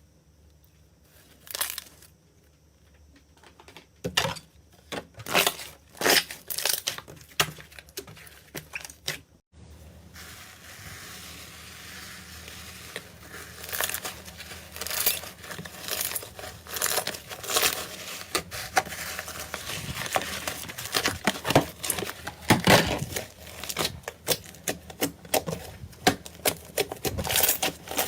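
Slime being squeezed and pressed by hand, giving sharp, irregular clicks. The clicks are spaced out at first, then after a cut about ten seconds in they come in a dense run over a steady hiss.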